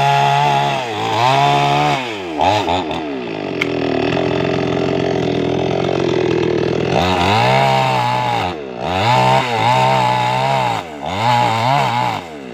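Two-stroke chainsaw engine revving up and down several times, with the revs dropping lower and steadier for a few seconds in the middle.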